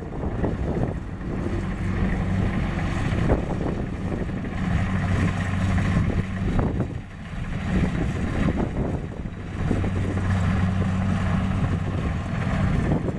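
Kubota DC-70 Plus combine harvester's diesel engine running steadily with a low hum while the machine cuts and threshes rice, with wind noise on the microphone.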